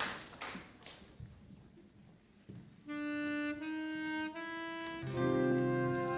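Faint hall noise, then a woodwind begins a live band intro about three seconds in, playing a slow line of single held notes that step upward. About two seconds later the band joins with low sustained notes and chords.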